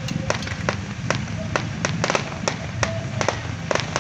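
Aerial fireworks going off: a rapid, irregular string of sharp bangs and pops, several a second, over a low steady rumble.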